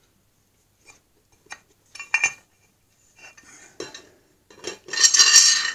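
Metal parts of a custom-made bottle-jack press clinking and knocking as the aluminium mould box and plates are handled and fitted onto the press, with several short clinks, then a longer metallic scrape and rattle about five seconds in that is the loudest sound.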